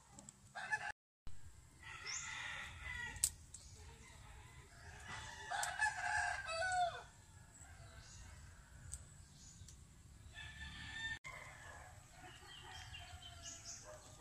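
Chickens calling several times over a low steady background. The loudest call comes about five to seven seconds in and ends on a falling note.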